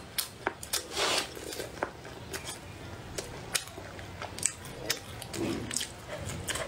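Close-miked eating: chopsticks clicking and scraping against a ceramic bowl of rice, with chewing.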